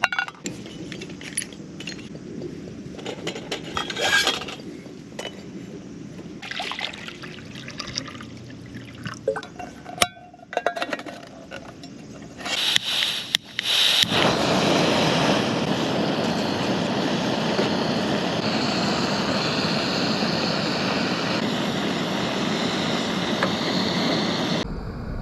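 Camp cookware and utensils clinking and knocking, then a steady rush of running water that starts suddenly about halfway through, runs for about ten seconds and cuts off near the end.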